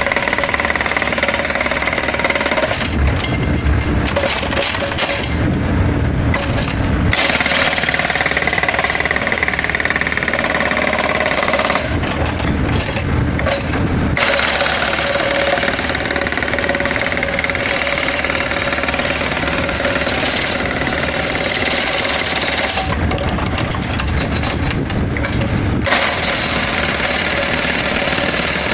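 Hydraulic rock breaker on a Hitachi Zaxis excavator hammering rock in long, rapid runs. It pauses three times for a few seconds, and the excavator's diesel engine and hydraulics are heard alone.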